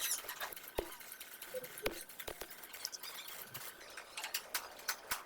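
Faint, irregular small clicks and ticks over a low hiss.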